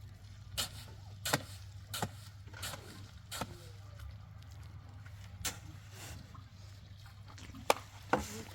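A series of sharp knocks or taps, irregularly spaced, several in quick succession at first and two close together near the end, over a steady low hum.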